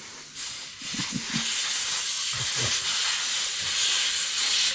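Air rushing out of a motorcycle tyre through the open valve stem after the valve core is pulled. The hiss builds over the first couple of seconds, then holds steady and loud as the tyre deflates.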